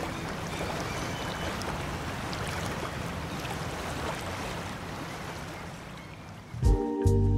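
Sea waves washing in a steady rush of surf. Near the end, music with a beat starts over it.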